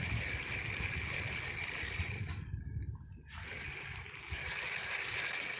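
Water sloshing and lapping around a small boat at sea.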